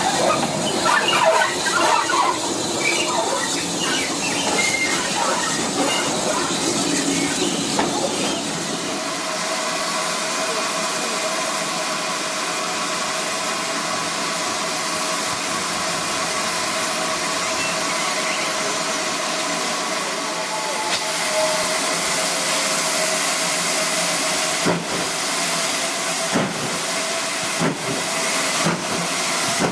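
Steam locomotive hissing steam steadily, with some squeaks in the first few seconds and a few sharp knocks near the end.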